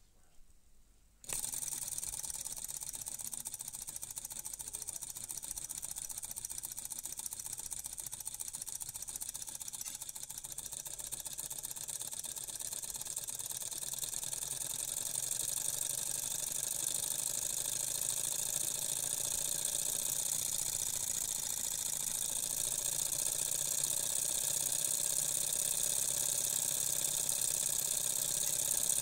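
Model Stirling engine with a glass displacer tube starts running about a second in: a steady mechanical whirring rattle from its flywheel and linkage, growing gradually louder.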